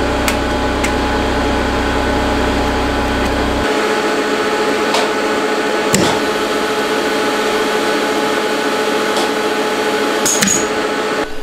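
Steady hum of a powered-up CNC mill's motors and cooling fans, with several steady tones in it, and a few sharp clicks scattered through. The deepest part of the hum drops away about four seconds in.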